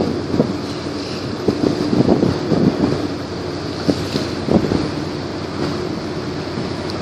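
Wind buffeting the microphone over water washing and a low, steady engine hum from a large container ship under way close by.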